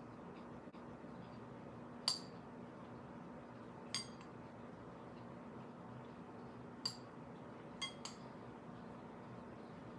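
Metal fork clinking against a plate as food is picked up: five light clinks, the first about two seconds in and the last two close together near the end, over a faint steady hum.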